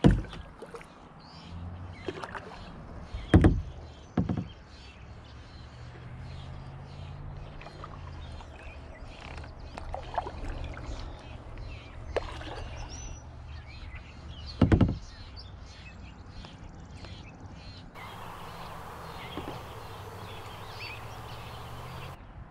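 Kayak paddling: the paddle dipping and stroking through the water, with a few sharp knocks, loudest about three and a half seconds in and again about fifteen seconds in.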